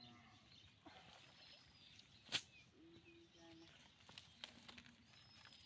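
Near silence: faint outdoor background with a few faint chirps and one sharp click a little over two seconds in.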